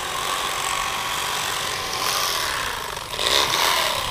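Electric fillet knife running steadily as its blades cut around the rib cage of a blue catfish fillet, a little louder a few seconds in.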